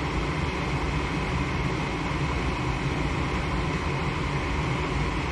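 Gas furnace running steadily through its start-up sequence after a new control board went in: the draft inducer motor hums and whooshes evenly while the igniter is lit.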